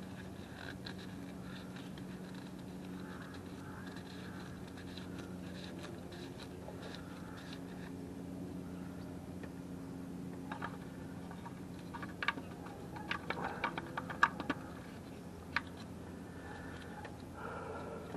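Light rustling, then a run of sharp plastic clicks and scrapes from about ten seconds in as the oil filler cap is handled and screwed back onto the engine's valve cover, over a steady low hum.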